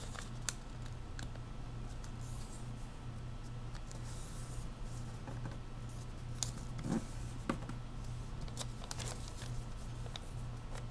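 Sheet of notebook paper being folded and creased by hand: a few short crinkles and taps, most of them between about six and nine seconds in, over a steady low hum.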